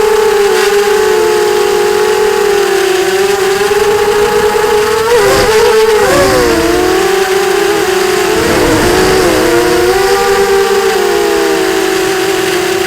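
Sunnysky 2207 brushless motors and propellers of a ZMR 250 FPV racing quadcopter whining loudly and steadily; around the middle the pitches split apart and waver up and down as the motors change speed against each other during manoeuvres, then settle back to one steady whine.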